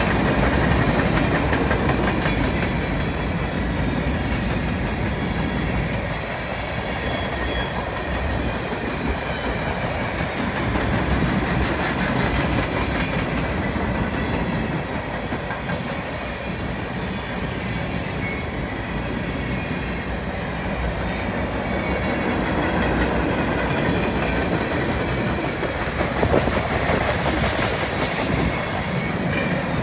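Freight cars of a passing freight train, empty centerbeam flatcars and boxcars, rolling by steadily, their steel wheels clacking over the rail joints.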